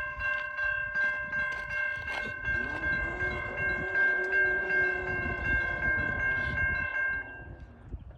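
Norfolk Southern train passing at speed, its locomotive horn holding a steady multi-note chord over the rumble of the train; the horn cuts off about seven seconds in.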